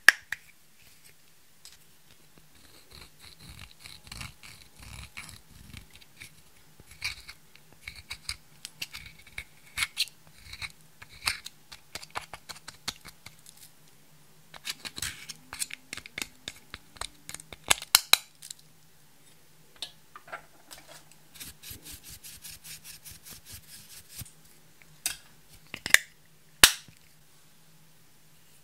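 Makeup being handled and crushed in a glass dish: irregular clicks and taps of plastic compacts and lipstick cases, with a metal spatula scraping and breaking up pressed eyeshadow powder against the glass. A few sharp, loud clicks stand out, one right at the start and two near the end.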